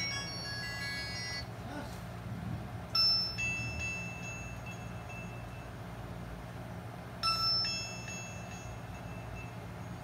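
A phone ringtone of bell-like notes ends about a second and a half in, followed by two single chime tones about four seconds apart, each ringing out for a second or two, over a steady low hum.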